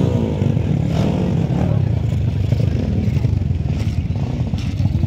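Motocross dirt bike engines running steadily, a dense rough sound with no single clear rev.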